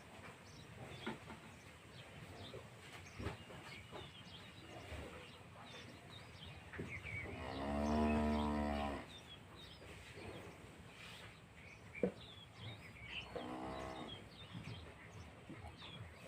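Dairy cows mooing: one long, low moo about halfway through and a shorter one a few seconds later, with small birds chirping faintly throughout.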